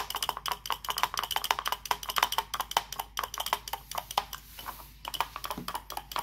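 Rapid, fairly steady clicking, several clicks a second, pausing briefly about four and a half seconds in.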